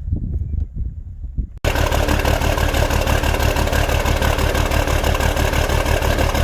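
An engine running loud and steady with a fast, even pulse. It comes in abruptly about a second and a half in, replacing a quieter low rumble.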